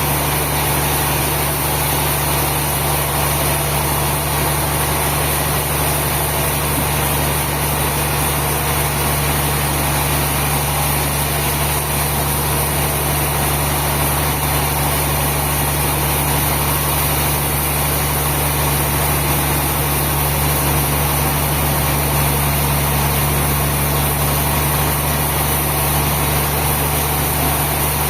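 Sawmill machinery running steadily: a constant low engine-like hum with a high hiss, unchanging throughout.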